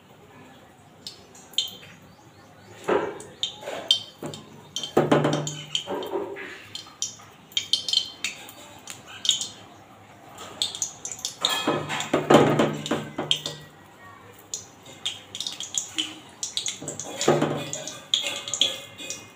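Raw-banana fritter batter dropped by hand into hot oil in a steel kadai and frying, with a light sizzle and short metallic clinks of utensils against the pan.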